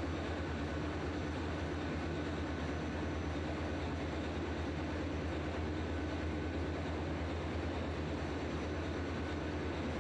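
Steady drone of a ship's engine-room machinery: an even low hum with a faint high whine over it.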